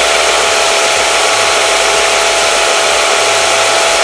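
SIP 01943 combined 6 x 10 inch belt and disc sander, with its 1 hp motor, running unloaded: a steady noise from the motor and the moving belt with a steady whine over it.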